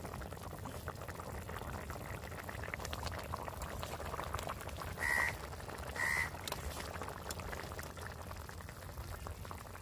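Fish curry bubbling and sizzling in a kadai: a steady crackle of small pops. About five seconds in, two short high calls sound a second apart.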